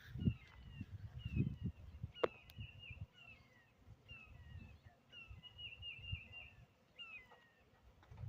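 A small bird chirping over and over with short, quick notes that slide downward in pitch. Irregular low rumbling thumps sit underneath, and there is one sharp click about two seconds in.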